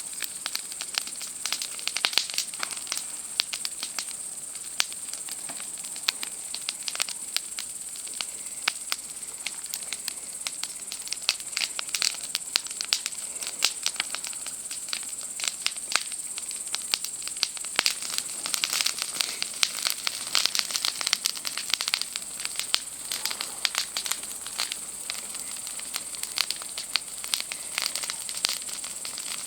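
Campfire crackling and popping in a dense, irregular stream of sharp snaps, over a steady high-pitched insect chorus of night cicadas.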